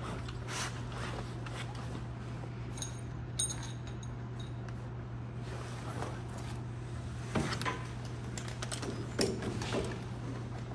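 Firefighters' turnout gear and breathing-apparatus harnesses rustling and shifting, with a brief metallic jingle about three seconds in and a few knocks later, over a steady low hum.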